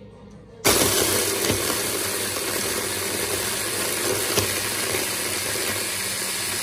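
Braun hand blender motor driving its chopper-bowl blade, switched on suddenly about a second in and running at a steady level as it grinds Oreo cookies into a fine powder.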